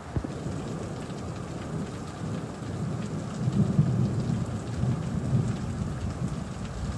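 Heavy rain pouring steadily, with a low rumble swelling about halfway through.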